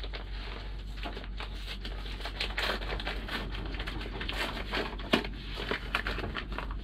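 Paper packaging crinkling and rustling as a brown padded envelope is handled and opened, with irregular crackles and one sharper crackle about five seconds in.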